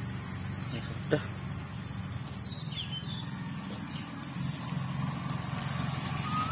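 A steady low engine-like drone, with a single knock about a second in and a faint bird chirp around two to three seconds.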